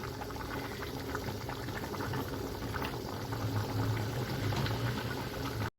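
Pot of chicken biryani rice and water bubbling at a boil, many small pops over a steady low hum. The sound cuts out for a moment just before the end.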